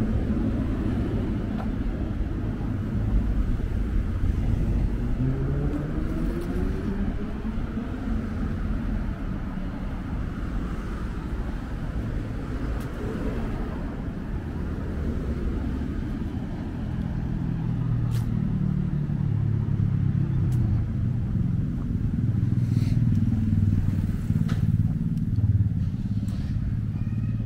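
Street traffic: motor vehicles running past, one with an engine note that rises a few seconds in as it accelerates.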